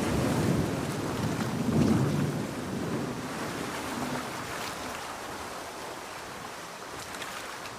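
Rain and ocean surf, with a low rumble that swells about two seconds in and then fades away, leaving a steady hiss of rain and waves.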